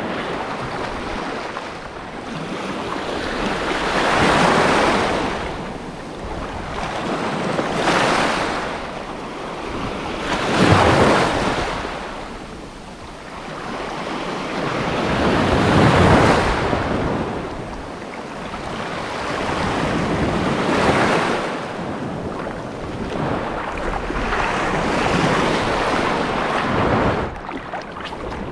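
Sea waves washing in, the surf swelling and ebbing about six times, every few seconds, with wind buffeting the microphone.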